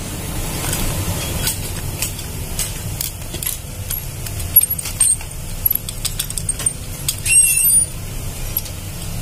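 Small clicks and taps of plastic and metal parts of a photocopier's waste-toner drive assembly being handled and worked apart by hand, with a short squeak about seven seconds in, over a steady low rumble.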